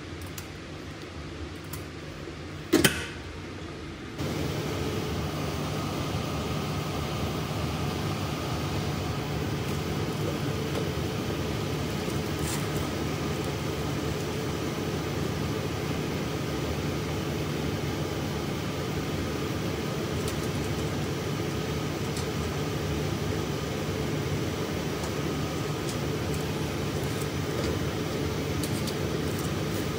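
Steady hum of a biosafety cabinet's blower fan, which sets in suddenly about four seconds in and then holds level. Before it there is a quieter room hum with one sharp click.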